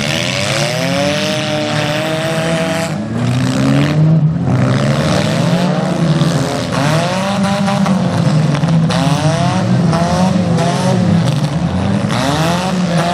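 Several demolition derby car engines revving at once, their pitches rising and falling over one another without a break.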